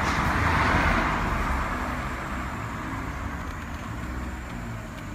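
BMW E90 electric radiator cooling fan running with the engine off and cold, a steady rushing noise over a low hum that eases off over the first couple of seconds. It keeps running because the engine computer reads 95 °C while the engine measures 32 °C, which the mechanic puts down to a faulty coolant temperature sensor.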